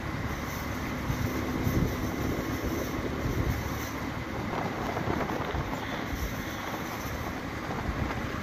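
Riding noise from a motorcycle on the move: wind rushing over the microphone with a steady rumble from the engine and tyres.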